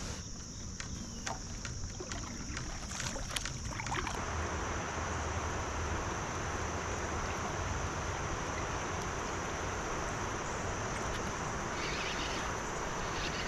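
Steady rush of river water and wind around a kayak, with a high, steady insect drone underneath. For about the first four seconds it is quieter, with crickets and a few light clicks, and then it thickens into a fuller, even rush.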